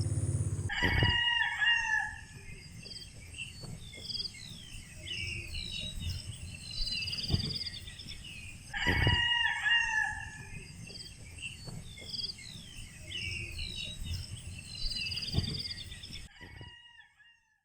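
A rooster crowing twice, about eight seconds apart, with small birds chirping throughout over a low rumble. The sound fades out near the end.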